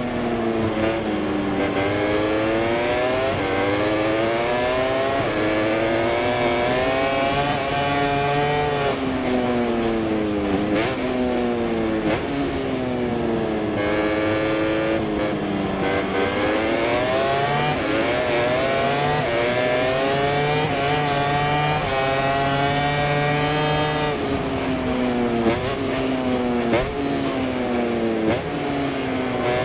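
MotoGP racing motorcycle engine heard from on board at full race pace. Its pitch climbs hard and drops sharply in steps as the rider shifts up through the gears, then sinks in longer falls under braking and downshifts, several times over.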